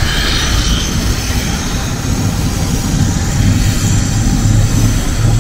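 ATR 72-500 turboprop airliner's engines and six-blade propellers running as it rolls along the runway, a low droning hum with a faint high turbine whine above it. The drone grows louder about halfway through.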